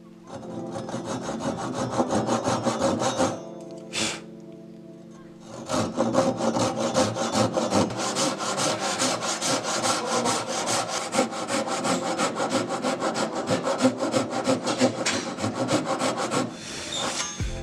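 Japanese handsaw cutting into hard maple: a short run of quick strokes, a pause, then a long steady run of rapid rhythmic sawing strokes that stops shortly before the end.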